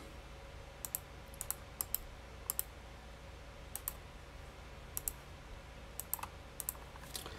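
Scattered clicks of a computer mouse and keyboard, about a dozen sharp clicks, often in quick pairs, over a faint steady hum.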